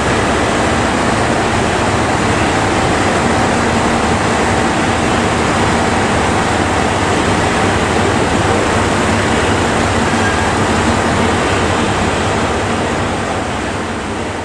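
JR Shikoku 2700 series diesel railcar standing at the platform with its engines and cooling fans running, a loud, steady rumbling hum with a few faint held tones. The sound grows fainter near the end.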